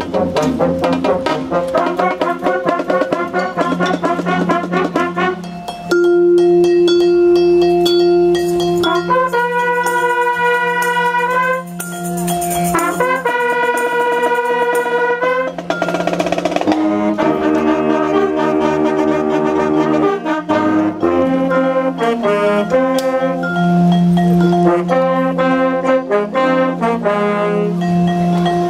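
A band of trumpets, saxophones and a tuba, with marimba, playing an upbeat tune. Quick runs of notes give way to long held brass chords partway through, then the melody moves on again.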